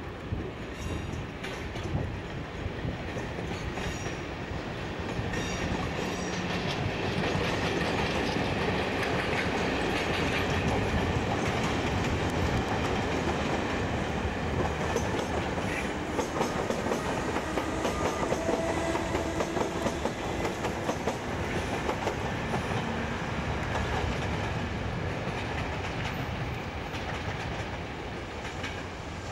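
Slam-door electric multiple unit running past on the tracks, its wheels clattering over rail joints and points. The rumble grows louder about seven seconds in, holds, and eases near the end.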